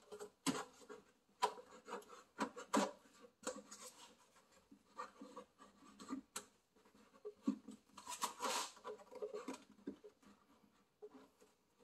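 Plastic engine air filter housing and cover being handled and pushed into place by hand: irregular rubbing, scraping and light knocks of plastic on plastic, with a longer scrape about eight and a half seconds in.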